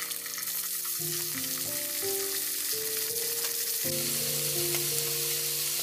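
Food frying in a pan, a steady crackling sizzle, with soft background music playing along.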